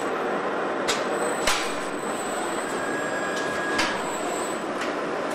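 Car assembly line machinery running: a steady mechanical din broken by three sharp metallic clacks, with a faint thin whine for about a second in the middle.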